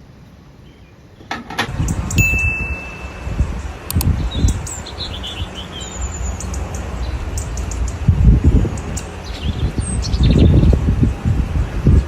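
Birds chirping over loud, uneven low rumbling.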